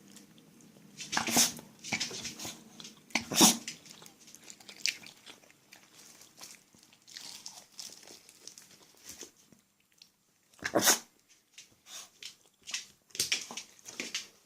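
Small spitz dog sneezing on command, three sharp sneezes about a second in, at three and a half seconds and near eleven seconds, with smaller snorts and clicks between.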